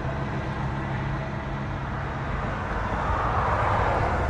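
Steady low hum of a running vehicle engine, with a rush of road noise that swells about three seconds in.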